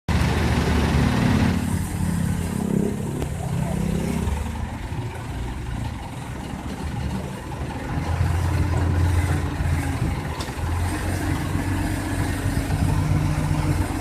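A heavy engine running steadily, its low hum shifting in pitch several times as its speed changes.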